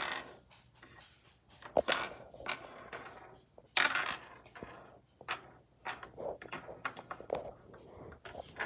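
Small plastic toy animal figures and a little plastic container being moved about on a wooden tabletop, giving irregular light taps, knocks and scrapes, a few of them louder.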